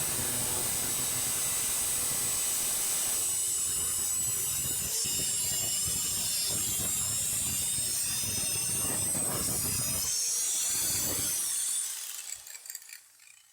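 A high-speed power grinding tool cutting away metal, steady and loud with a high whine that wavers as it bites. It stops about twelve seconds in. The tool is trimming fan brackets on an aftermarket radiator that foul the ABS assembly.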